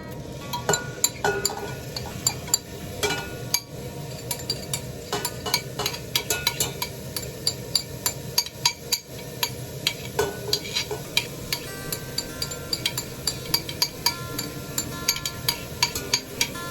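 Risotto rice being stirred and toasted with onions in hot olive oil in a pot: a steady sizzle with frequent sharp clinks and scrapes of the spoon against the pot.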